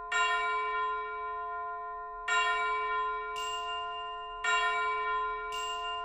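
Background music: a sustained bell-like chord struck three times, about two seconds apart, each ringing and slowly fading, with a brief high shimmer after the second and third strikes.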